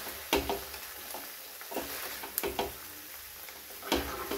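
Wooden spatula stirring cooked macaroni in a pan, with scattered short knocks and scrapes against the pan, several bunched near the end.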